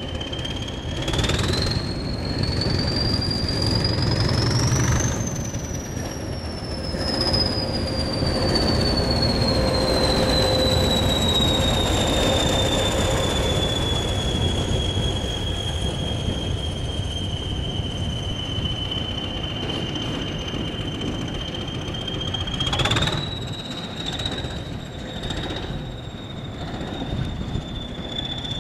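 English Electric Class 20 diesel locomotive working under power. A low engine rumble runs under the high turbocharger whistle, which rises as the engine opens up in the first few seconds and then slowly falls away. About 23 seconds in there is a sharp knock and the whistle steps up again.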